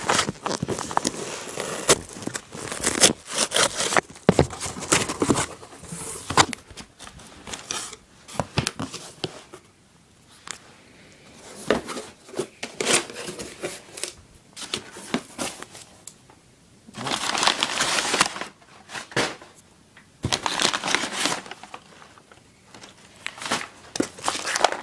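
Packaging being torn open and handled: crinkling and tearing in irregular bursts, with small knocks and clicks from items being moved, with louder stretches about two-thirds of the way through.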